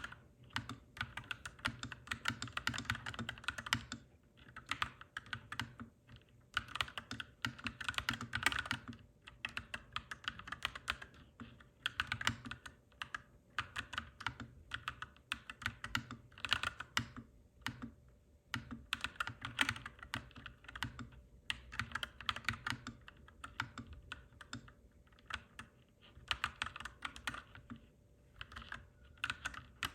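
Clacky mechanical keyboard being typed on steadily: dense runs of key clicks in bursts with brief pauses, over a faint steady low hum.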